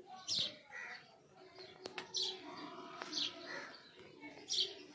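Small birds chirping: a few short, high chirps about a second apart.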